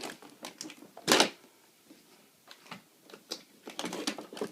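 Paintball marker parts and packaging being handled and unpacked: scattered clicks and clatters, with a louder knock about a second in and a run of small rattles near the end.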